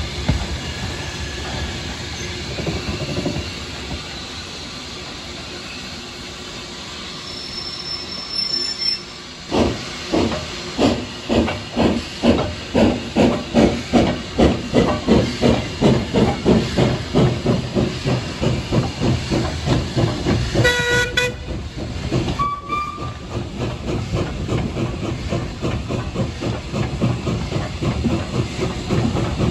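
Saddle-tank steam locomotive hissing steam, then its exhaust chuffing steadily at about two beats a second as it works a train. A short whistle blast sounds about two-thirds of the way through.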